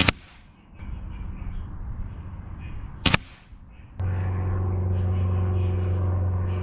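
Two shots from a Rainson Edge-X .22 PCP air rifle, each a sharp crack, one at the very start and one about three seconds later. About four seconds in a steady low hum starts and holds to the end.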